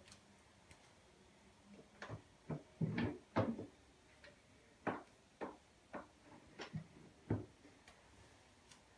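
A series of short, irregular knocks and clicks, about a dozen, the loudest a few seconds in.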